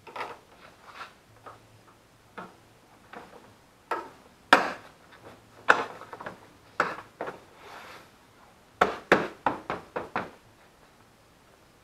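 Plastic windshield cowl panel being pressed down by hand into its clips, giving a series of sharp plastic clicks and knocks, irregular at first and then a quick run of about six near the end.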